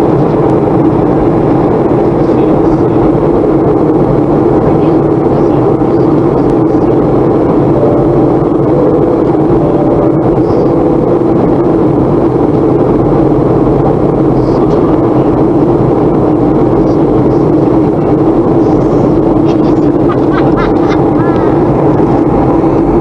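Steady cabin noise of a Boeing 737-400 in flight, heard beside the wing-mounted CFM56-3 turbofan: a constant engine drone mixed with rushing airflow.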